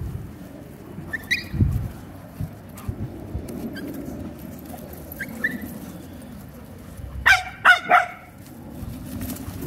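Puppies at play, giving a few short high-pitched yips and then three quick, loud barks about seven seconds in.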